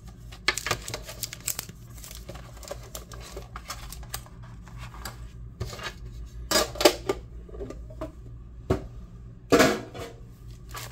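Handling and unwrapping of a sealed Topps trading-card hobby box: scratchy crinkling, tearing and rustling of plastic wrap and cardboard, with two louder bursts of crinkling in the second half.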